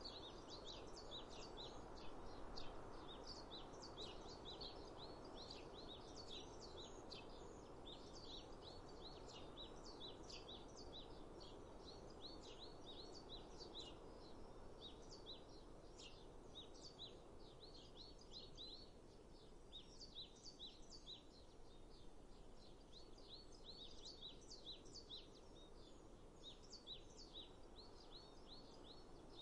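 Faint chorus of small songbirds chirping and singing in quick, short notes, over a soft, steady rushing hiss.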